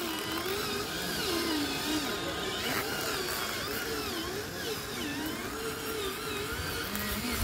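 Electric motor and gearbox of a soil-loaded RC toy truck whining as it drives, the pitch rising and falling about once a second as it speeds up and slows, settling into a steadier lower hum near the end.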